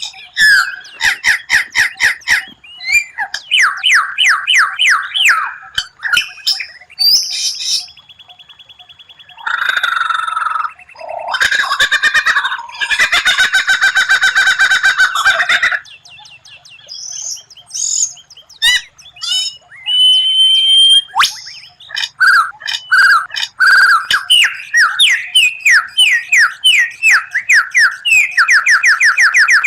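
White-rumped shama (murai batu) singing a loud, varied song of fast repeated 'shot' notes (tembakan) and trills, with a dense rattling run in the middle and a rapid string of repeated notes near the end.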